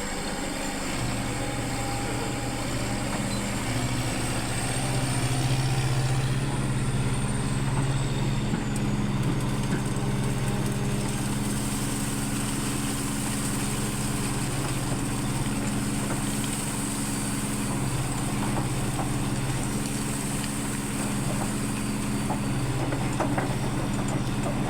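Backhoe's diesel engine idling steadily with a low, even hum.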